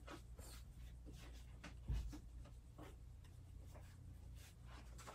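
Faint crinkling and clicking of clear plastic packaging and a stat card being handled while a Heroclix figure is unwrapped, with one soft thump about two seconds in.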